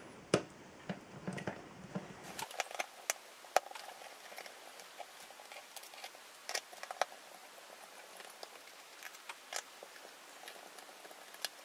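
Faint, irregular clicks and scratches of a Torx screwdriver working the small screws out of the back of a hard-drive enclosure, with the tool tapping and scraping against the case.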